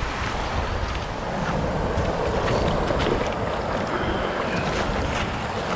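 Surf washing up the beach in shallow wash, with wind buffeting the microphone.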